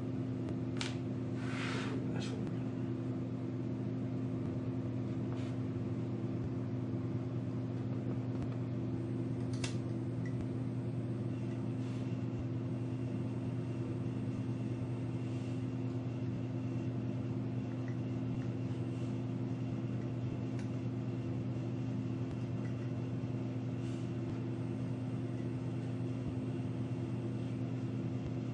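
Steady low machine hum with a few light clicks and taps, the loudest pair about one and two seconds in, from small plastic kit parts and a glue bottle being handled.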